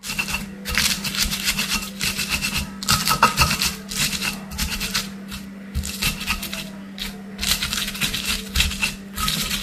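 Stone pestle pounding and grinding raw chilies and garlic in a stone mortar (ulekan and cobek): a fast, continuous run of gritty knocks and scrapes of stone on stone.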